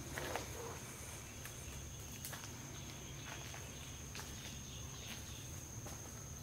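A steady, high-pitched insect trill over faint outdoor ambience, with a few soft clicks and rustles.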